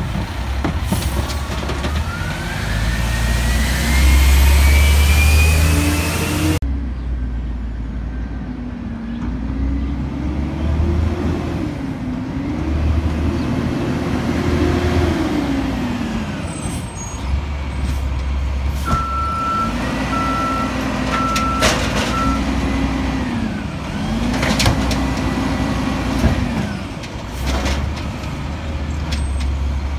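2005 diesel garbage truck engine running, its speed rising and falling again and again in slow surges. A few short beeps like a backup alarm sound about two-thirds of the way through, along with some sharp clicks.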